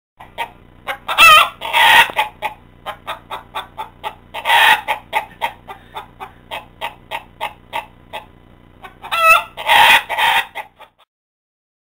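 Chickens clucking in a quick run of short clucks, about three to four a second. The clucks are broken by louder, drawn-out calls about a second in, around four and a half seconds in and again near the end, then the clucking stops.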